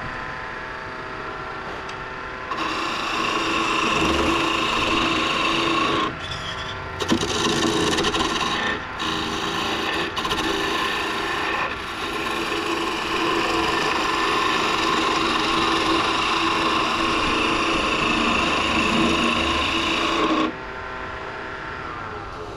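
Curved skew chisel cutting a spinning oak spindle on a Laguna wood lathe: a steady shearing hiss of the cut over the lathe's hum, broken by a few short pauses as the tool is lifted. The cut stops about two seconds before the end, leaving only the lathe running.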